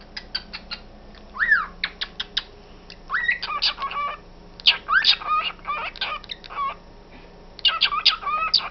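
Small pet parrots (budgerigars and a cockatiel) chirping and chattering. It opens with a run of sharp clicks and one short whistle that rises and falls, then moves into bursts of quick warbling chatter, twice.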